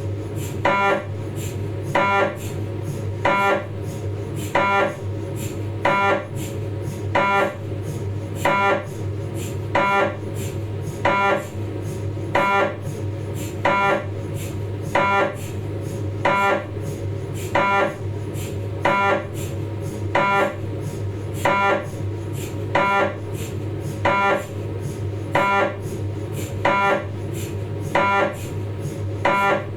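Philips 1.5 T MRI scanner running a 3D T2-weighted sagittal spine sequence: a steady hum under pairs of pitched knocks from the gradient coils, repeating evenly about once every 1.3 seconds.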